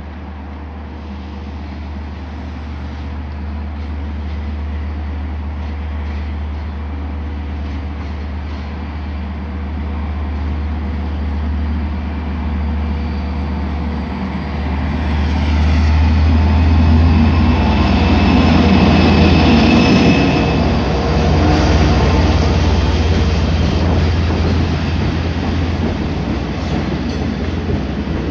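A pair of Long Island Rail Road DM30AC diesel locomotives, with EMD 710 engines, hauling bilevel coaches through a station without stopping. Their low engine drone grows steadily louder and is loudest about two-thirds through as the locomotives go by, with high ringing tones. The coaches then rush past.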